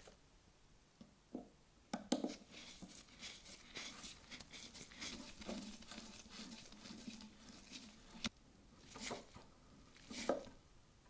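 Small flat-blade screwdriver turning a tiny slotted screw in a brass knife-handle end cap: a busy run of small scratchy clicks from the blade working in the slot and the metal parts being handled, with a few sharper knocks, the loudest about two seconds in and again near the end.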